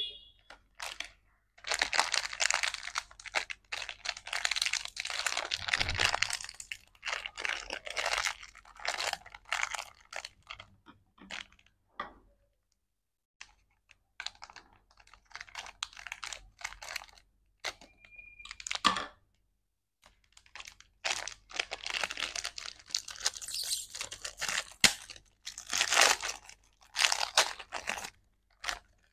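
Plastic candy wrappers crinkling and tearing as they are opened by hand, in loud bursts of rustling broken by short pauses, with scissors snipping through a wrapper.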